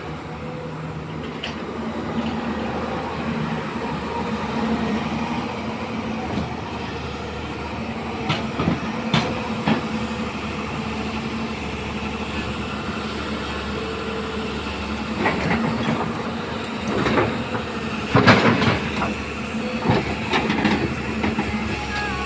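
Hyundai 215 L crawler excavator's diesel engine running steadily under work, with sharp knocks and clanks of the machine working: a few about eight to ten seconds in and a louder cluster of clatter in the last third.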